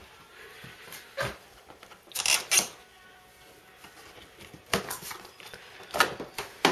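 Scattered rustles, scuffs and a few sharp clicks of handling noise as the camera is moved close over a parked snowmobile's plastic bodywork, the loudest rustles about two seconds in.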